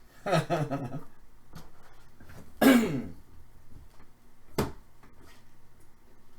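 A man's short non-speech vocal sounds in a small room: a brief voiced burst near the start, then a louder one falling in pitch a little before the middle. A single sharp click follows later, over a faint low hum.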